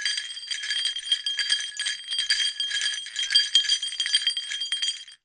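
Small bells, sleigh-bell style, shaken in a continuous jingle that cuts off suddenly after about five seconds.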